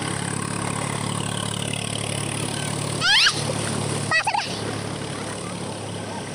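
A tractor engine runs steadily as it drives through knee-deep floodwater. About three seconds in, a sharp high squeal rises quickly in pitch, and a shorter wavering high sound follows a second later.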